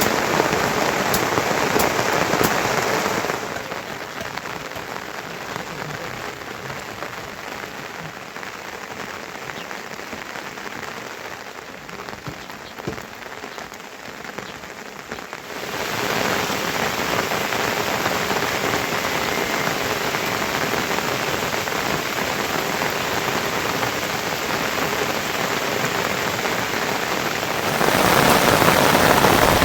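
Heavy monsoon rain falling steadily, an even hiss. It drops quieter about three seconds in, comes back louder around fifteen seconds, and grows louder again near the end.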